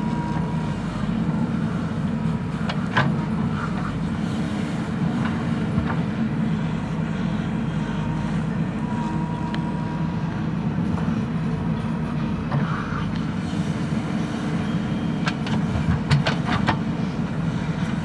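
JCB 3DX backhoe loader's diesel engine running steadily under digging load as the backhoe arm works a trench. A faint high whine comes and goes, and a few sharp metal clanks come about three seconds in and in a cluster near the end.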